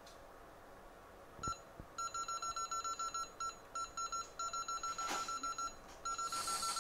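A hot air rework station beeping: many short electronic beeps at one pitch, in quick irregular runs of several a second, with a click just before they start and a short hiss near the end.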